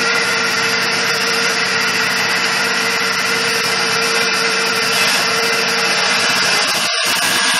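Bench bandsaw running with a steady hum while its blade cuts through a small black engine part, a brief break in the cut about seven seconds in.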